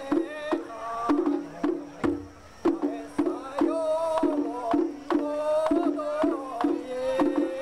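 Bon odori festival music: a wavering melody over a steady drum beat, a little over two beats a second.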